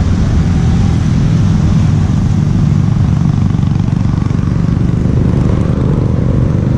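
Motorcycle engines running with a steady low rumble.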